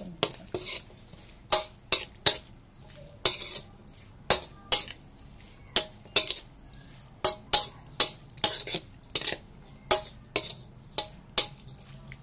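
Metal spatula scraping and tossing minced pork, intestines, shallots and chili against a metal wok while mixing in the seasoning: quick scrapes, roughly two a second, in irregular runs.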